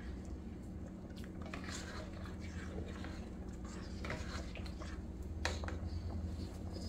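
A plastic spoon stirring rice in seasoned water in a metal pot: soft wet swishing with a few light clicks of the spoon against the pot, over a steady low hum.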